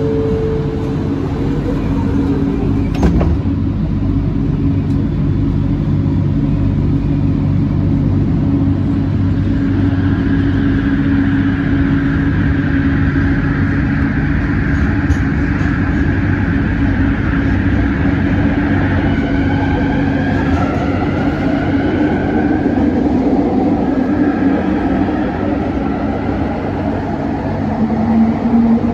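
Kelana Jaya Line light-rail train at the platform, a steady electric hum with high wheel squeal wavering up and down through the middle. A rising motor tone comes in near the end as a train moves along the platform.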